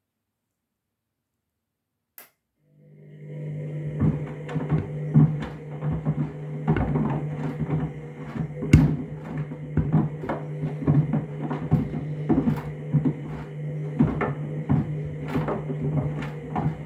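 Candy washing machine on its trainers cycle: a click about two seconds in, then the drum motor starts and runs with a steady low hum while the load tumbles and knocks irregularly against the drum.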